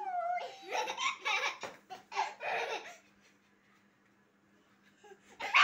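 A baby laughing in quick giggling bursts for about three seconds, then a short pause.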